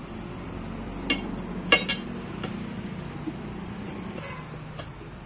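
Sharp metallic clinks and knocks from a tyre lever against an alloy motorcycle rim as the bead of a tubeless tyre is worked over it: three close together in the first two seconds, the loudest just under two seconds in, then a few lighter taps. A steady low hum runs underneath.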